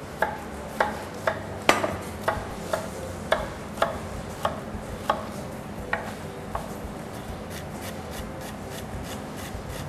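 Kitchen knife cutting a garlic clove on a plastic cutting board: about a dozen sharp knocks, roughly two a second, that give way to faint light taps about six and a half seconds in.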